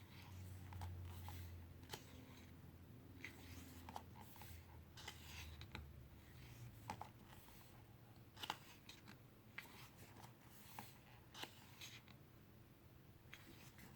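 Faint handling of a photobook: scattered soft clicks and paper rustles as pages are turned, with a low hum through the first several seconds.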